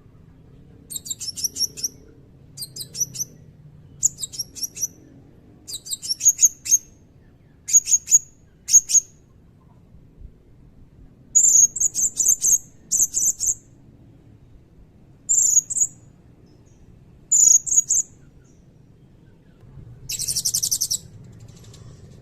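Blue-crowned hanging parrot (serindit) calling in short bursts of high, sharp chirps, repeated about once a second with brief pauses, ending in a longer buzzing trill near the end.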